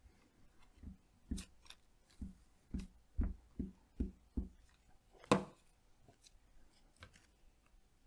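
Glue stick rubbed in strokes over a paper cutout on a wooden tabletop, making soft taps about two a second. A louder knock comes a little past halfway, followed by a few faint clicks.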